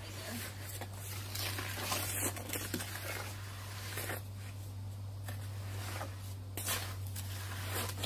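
Cloth being dunked and worked by hand in a tub of watery concrete mix: irregular wet splashes and squelches, several times over, above a steady low hum.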